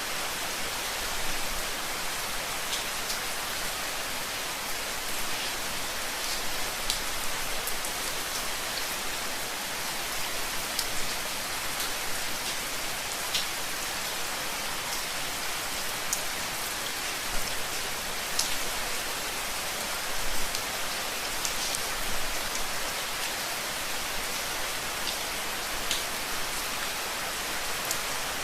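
Steady rain falling, an even hiss with scattered sharper drops ticking on a surface.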